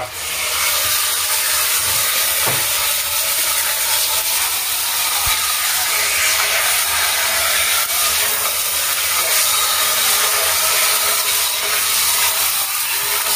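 Handheld shower head spraying water onto a wet cat and into the bathtub: a steady hiss of running water.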